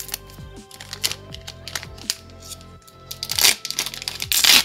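Background music plays throughout; near the end, a foil trading-card booster pack wrapper crinkles and is torn open in two loud rips.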